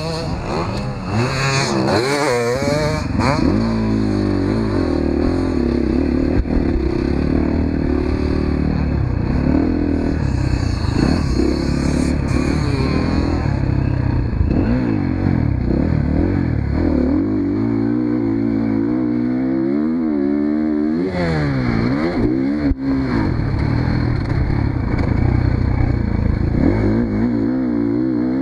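Motocross dirt bike engine ridden hard, revving up and down through the gears, its pitch rising and falling repeatedly, with sharp sweeps near the start and about three-quarters of the way through.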